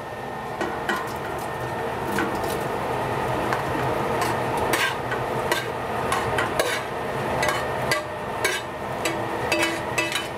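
A spoon stirring and scraping in a pot of frying meat, with frequent irregular knocks of the spoon against the pot over a steady sizzle.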